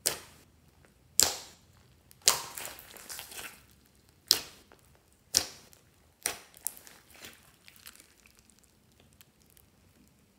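Hands squeezing and kneading a large lump of glossy slime mixed with foam beads, making sharp wet pops and crackles as air trapped in the slime bursts out. There are about six loud pops, roughly one a second, with a longer crackle near the third second, then smaller clicks that die away after about eight seconds.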